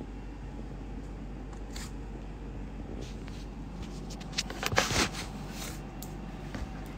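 Handling noise: a short cluster of rustles and clicks about four and a half to five seconds in, over a steady low hum.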